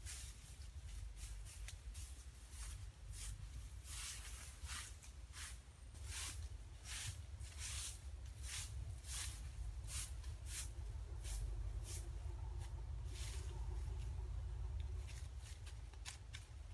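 Dry grass thatch and leaf litter rustling in many short, irregular swishes as a person handles the thatch and moves over the ground, over a low steady rumble.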